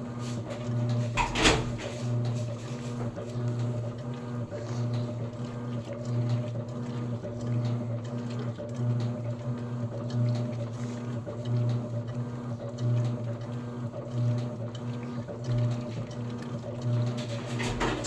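Electrolux Essential Care 11 kg top-loading washing machine agitating its load: a steady motor hum with regular swells of churning water as the agitator turns back and forth. A single sharp knock about a second and a half in.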